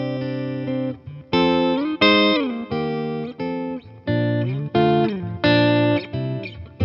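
Eastman T185MX thinline hollow-body electric guitar played solo through an amplifier, improvised: a held chord rings for about a second, then short plucked chords and double-stops follow with brief gaps between, some notes bent up and let back down.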